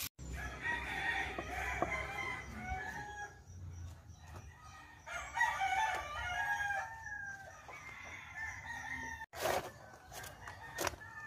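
A rooster crowing twice: one long crow near the start and another about five seconds in. A few sharp knocks come near the end.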